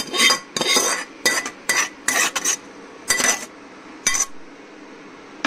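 Metal spoon scraping and clinking against a metal cooking pot as a thick yogurt mixture is stirred and scraped: a quick run of strokes for about two and a half seconds, then two more single strokes before it stops.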